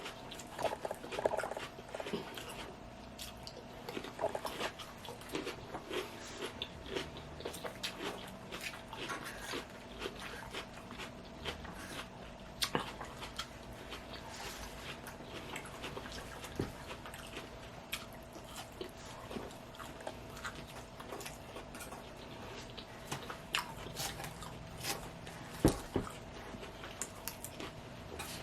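Close-up eating sounds: salad being chewed, with many small crisp crunches and mouth clicks following one another, over a faint steady hum.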